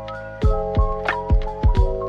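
Background music: held chords over a steady kick-drum beat with light cymbal ticks.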